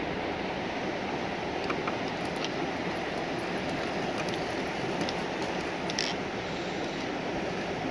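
Electric RC scale crawler truck driving through dry grass and twigs: a steady, even drivetrain noise with a few light ticks and snaps of brush, the loudest about six seconds in.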